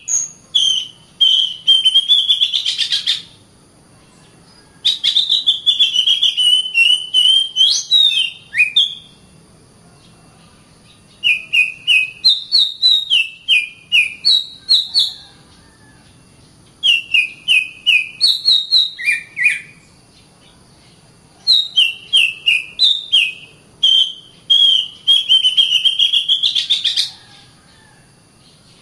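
Oriental magpie-robin (kacer) singing: five phrases of quick whistled notes mixed with rapid clicks, each a few seconds long, with short pauses between them.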